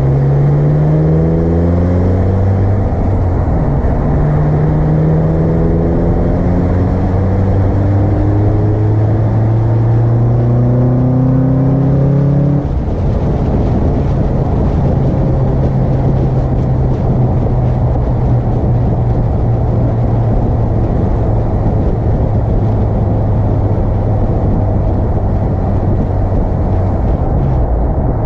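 Car engine breathing through an Acuity cold air intake under acceleration, its pitch climbing, dropping at gear changes and climbing again. About halfway through it settles to a steady cruise.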